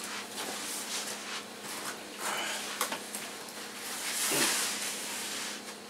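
A backpack being picked up and hoisted onto the shoulders: fabric and straps rustling, with a louder rustle about four seconds in as it is swung up.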